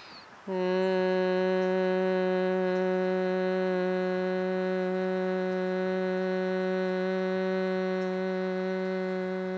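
A woman humming one long, steady note with closed lips on a slow exhale: Bhramari, the buzzing bee-breath of yoga pranayama. It starts about half a second in and holds the same pitch throughout.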